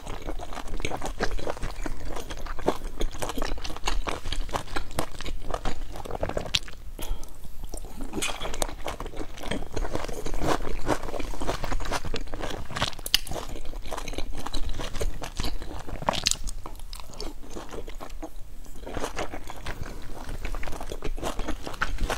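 A person chewing and crunching mouthfuls of large pleated dumplings dipped in chili sauce, a steady run of crunchy bites and chews with a couple of short pauses.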